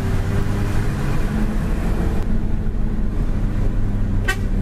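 Mitsubishi Fuso heavy truck's diesel engine running steadily in traffic, a low even hum. A short horn beep sounds near the end.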